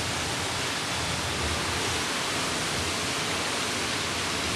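Thunderstorm downpour driven by strong wind: a steady, even rush of rain noise.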